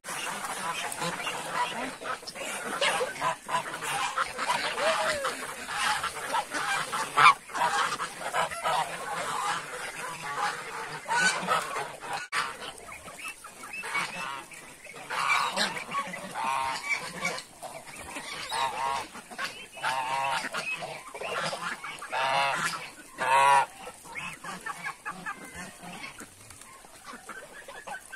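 Flock of domestic geese (Chinese, African and Toulouse geese) honking, many calls overlapping in loud bouts, quieter near the end.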